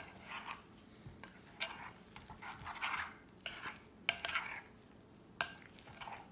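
A metal spoon stirring a thick yogurt-and-spice marinade in a glass bowl: irregular scraping strokes with several sharp clicks of the spoon against the glass.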